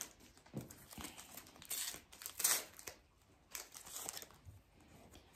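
Plastic wrapper of a Panini Adrenalyn XL trading card pack crinkling and being torn open by hand, in several short rustling bursts, the loudest about two and a half seconds in.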